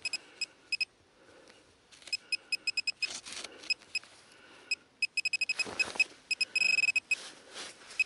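Metal-detecting pinpointer probe beeping in short electronic pulses as it is pushed through loose soil, signalling metal. The beeps come sparsely at first, then faster, and run almost together near the end as it closes on the target. A brief scrape of soil comes about six seconds in.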